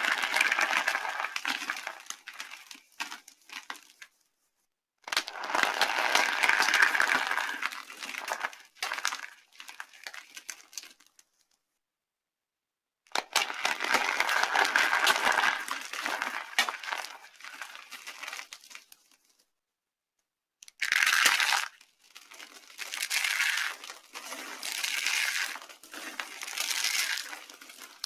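Dry soap being crushed and crumbled by hand, crunching and crackling in bursts a few seconds long that stop dead at edit cuts; in the last seven seconds come four shorter bursts.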